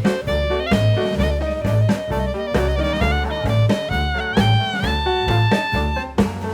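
Background music: upbeat swing-jazz with a walking bass on a steady beat and a horn-like melody line.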